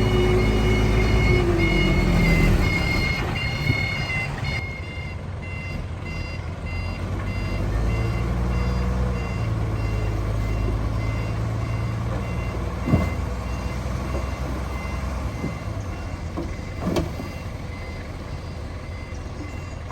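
Diesel engine of heavy earthmoving machinery running, with a reversing alarm beeping steadily throughout. Two sharp knocks come in the second half.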